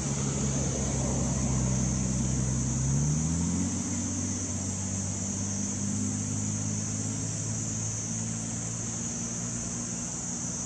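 A vehicle engine running steadily, its pitch rising about three seconds in and then holding at the higher pitch, over a steady high-pitched hiss.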